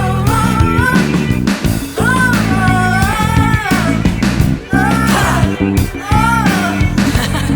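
Band music from a song: a full backing with a lead melody that swoops up and down in pitch.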